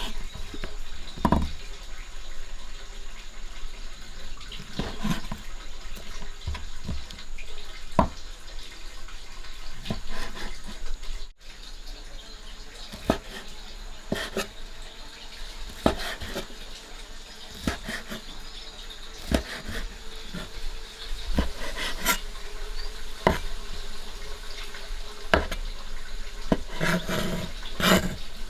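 Water running and splashing, with scattered knocks and clatter throughout.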